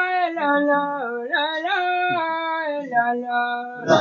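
A young man's voice chanting Quranic recitation in Arabic, one voice drawing out long held notes that slide from pitch to pitch, with a short breath about a second in.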